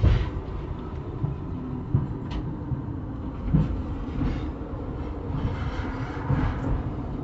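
Indian Railways passenger coach running along the track: a steady wheel rumble with irregular knocks as the wheels pass over rail joints, heard from on board the train.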